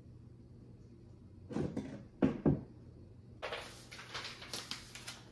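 Handling noise: a few dull knocks and thumps, the loudest two close together about two seconds in, then a couple of seconds of crackly rustling from the shelf kit's packaging and instruction sheet being handled.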